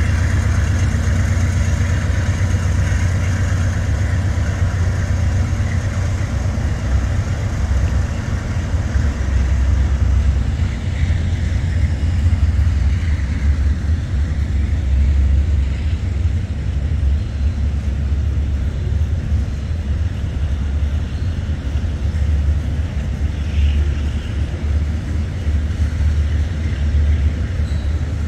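Toy electric train running steadily on its track, with a continuous low hum from the motor and wheels.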